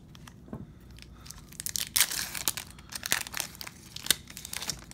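Shiny foil wrapper of a hockey card pack crinkling and tearing as it is ripped open by hand, in irregular crackly bursts that are loudest about two seconds in.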